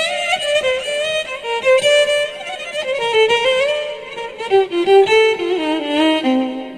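Violin played through a Zoom G1Xon multi-effects pedal, a melodic run of notes that steps downward in pitch.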